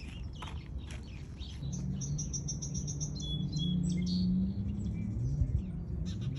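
Small birds chirping, with a quick trill of rapidly repeated high notes about a second and a half in, then a few lower chirps. A low wavering tone sounds underneath.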